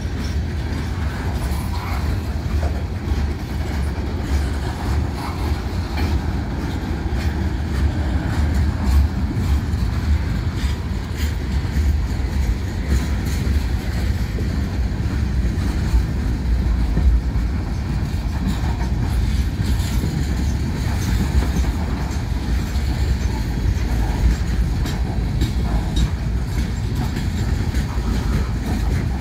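Freight cars of a Norfolk Southern train (covered hoppers, refrigerated boxcars and boxcars) rolling steadily past. Steel wheels on rail make a continuous low rumble, with scattered clicks of wheels over rail joints.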